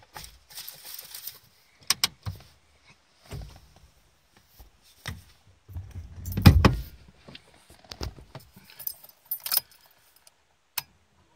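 Handling noises in a car cabin: a bunch of keys jangling, with scattered clicks and rattles and one heavier thump about six and a half seconds in. The engine is not yet running.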